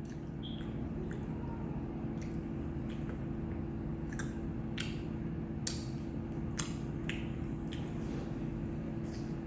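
A steady low hum with a scatter of short, sharp clicks, the loudest a little past the middle.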